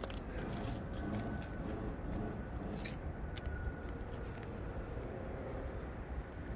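Outdoor city ambience: a steady low rumble of distant traffic, with scattered light clicks.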